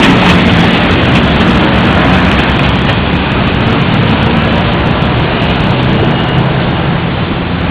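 Philippine National Railways diesel train running close by: a loud, steady engine rumble and running noise that slowly fades.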